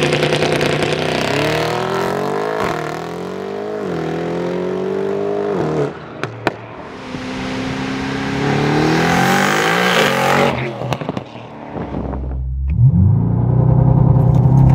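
Twin-turbo 4.0 V8 of a heavily tuned Mercedes-AMG GT63 S 4-door with catless downpipes and a titanium exhaust, revving hard in several rising sweeps with sharp pops and crackles as the revs fall. Near the end it is held at high revs on launch control before a launch.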